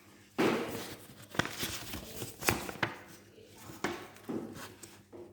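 A handful of irregular rustles and sharp clicks close to the microphone, with no steady sound between them.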